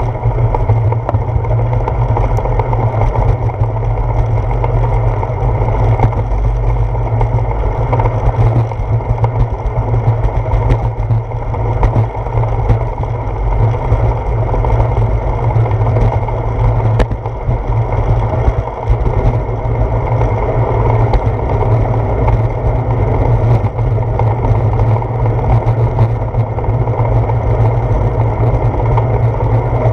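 Loud, steady wind noise buffeting a handlebar-mounted GoPro Hero 4 on a moving bicycle, a deep fluctuating rumble mixed with tyre and road vibration from the path.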